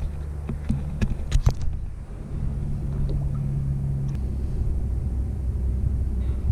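A low steady rumble with a faint hum, a motor-like or wind-like drone picked up on the boat. A few sharp knocks and splashes come in the first second and a half as a permit is lowered over the side of the skiff and released.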